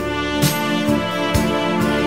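Slow background music with sustained chords and a soft beat about once a second.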